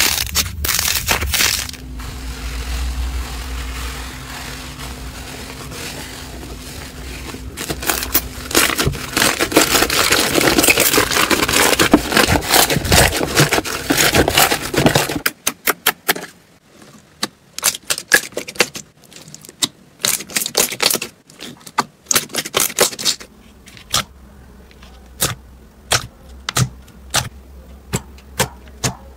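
Hands working slime: first a soft squelching, then loud dense crackling as foamy pink slime is kneaded and pressed in a tub. From about halfway on come separate sharp pops and clicks as fingers poke into glossy slime and push out trapped air.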